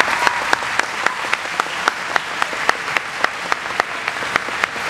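Audience applauding, with one close clapper keeping a steady beat of about four claps a second above the general clapping.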